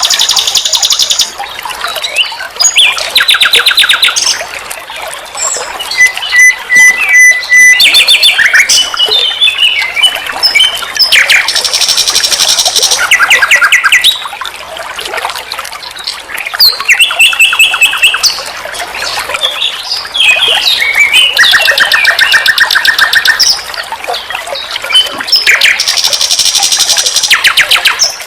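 Nightingale singing a long run of varied phrases: rapid repeated notes and trills alternating with clear level whistles, with short pauses between phrases.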